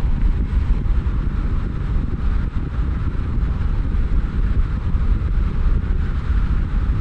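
Steady rumble of a car driving, with road and wind noise and no changes in engine pitch.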